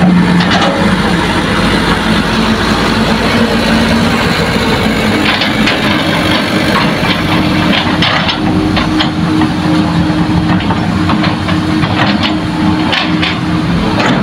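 Diesel engines running steadily: dump trucks idling close by and a Hitachi excavator digging and loading fill soil, with a few sharp knocks about halfway through and near the end.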